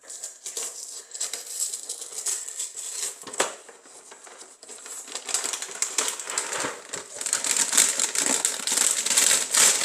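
A cereal box being opened by hand, its packaging crinkling and rustling with many small crackles, getting louder and busier about halfway through.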